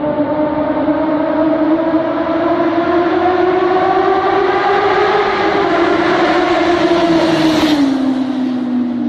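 Superbike engine and exhaust at high revs approaching through a road tunnel, its note climbing slowly, then dropping sharply in pitch as it passes close by, nearly eight seconds in.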